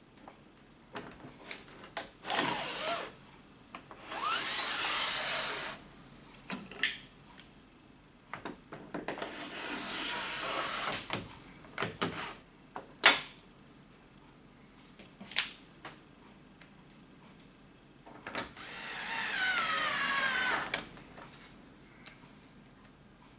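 Power drill running in several short bursts, its pitch rising and falling as the motor speeds up and slows, with clicks and knocks between the bursts.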